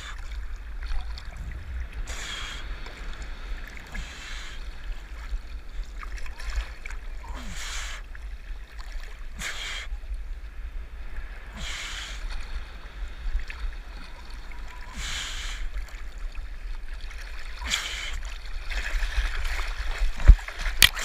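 Sea water sloshing and splashing around a waterproof action camera held at the surface, with a low rumble of water against the housing and a hissing surge every couple of seconds as small waves wash over it. A few sharp knocks near the end.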